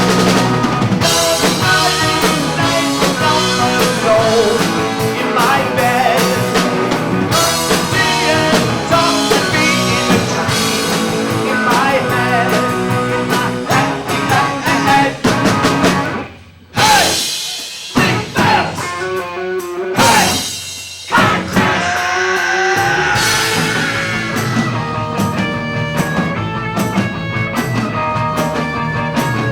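Rock band playing live, with guitar and drum kit, through a mostly instrumental passage of a song; the playing breaks off sharply a few times a little past the middle before carrying on.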